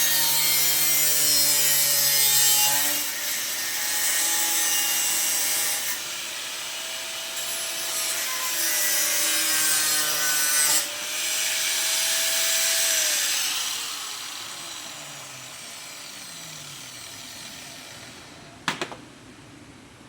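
Electric grinder cutting into car body steel, its motor note dipping and recovering as the disc bites. About thirteen seconds in it is switched off and spins down with a falling whine. A single sharp knock comes near the end.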